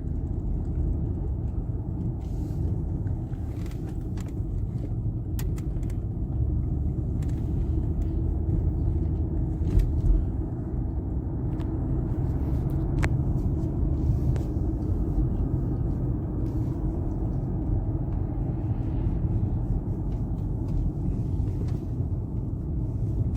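Steady low rumble of a car on the move, heard from inside the cabin, with a few faint clicks scattered through it.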